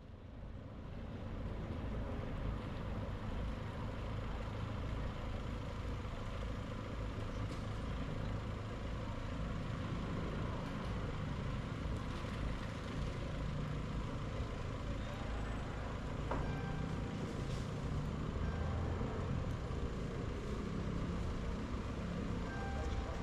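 Steady low rumble of city street traffic, fading in over the first second or so.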